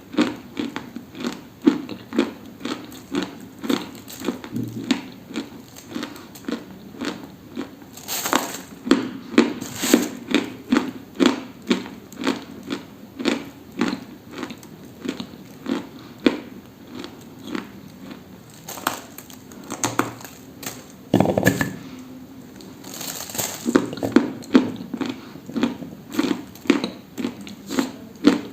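A steady run of dry crunches, about three a second, with a short pause a little past two-thirds of the way through before the crunching resumes.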